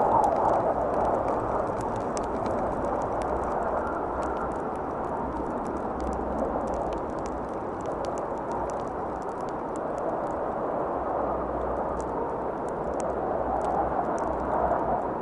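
Steady rushing wind noise on the microphone over a snowfield, with a low rumble and scattered small irregular ticks and crackles.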